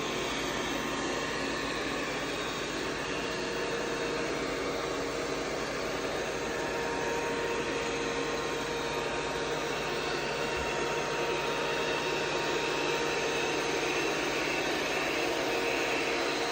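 Robot vacuum cleaner running: a steady motor whir with a constant hum-like tone, growing slightly louder towards the end.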